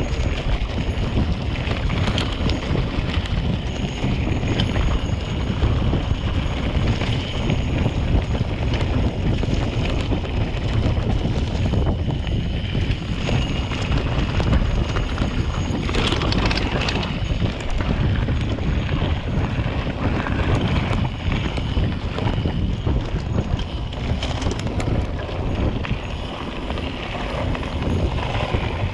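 Wind buffeting the microphone on a mountain bike's handlebars during a fast descent, over the rumble of tyres on a gravel road and occasional rattles of the bike.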